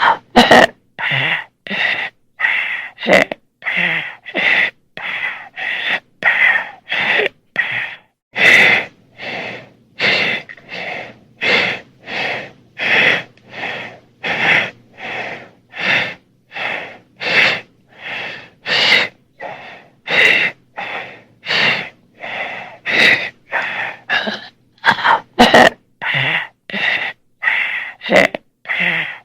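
Horror creature breathing sound effect: harsh, rasping gasps in and out, about one and a half breaths a second, a creature struggling for air. A few sharp clicks fall between the breaths.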